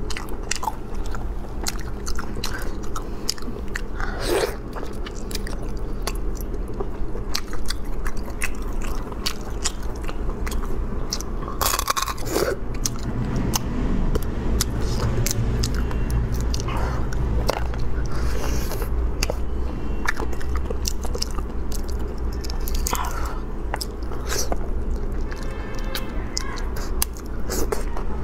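Close-up eating sounds of a person biting and chewing marinated snail meat: wet smacks, small crunches and clicks come irregularly throughout. A steady low hum sits underneath.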